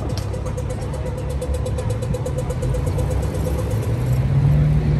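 City street traffic: a motor vehicle engine rumbling and rising in pitch as it pulls away in the second half. A fast, even, high ticking runs along with it and stops about four seconds in.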